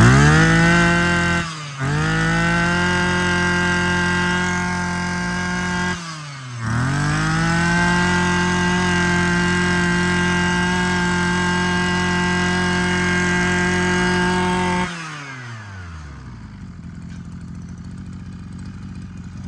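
Small two-stroke engine of a Maruyama 23cc brush cutter revved up to full throttle and held there. The throttle is eased off briefly twice and opened again. Near the end it is let back to a quieter idle.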